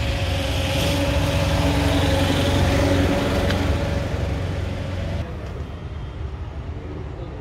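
Yanmar YM357A tractor's diesel engine running steadily. About five seconds in, the sound turns quieter and duller.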